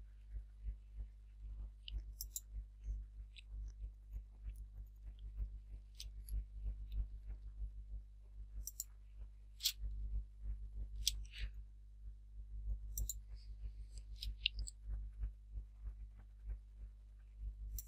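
Computer mouse and keyboard clicking: scattered sharp clicks a second or more apart, over a steady low hum.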